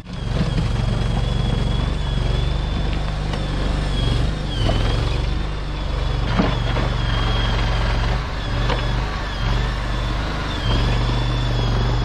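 Tracked stand-on mini skid steer running steadily under load while it pushes dirt. A high whine sags several times, and a few sharp knocks sound partway through.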